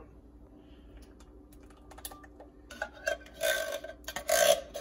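Evaporated milk pouring from a can into a glass blender jar, coming in two short gurgling bursts in the second half after a quiet stretch with faint ticks.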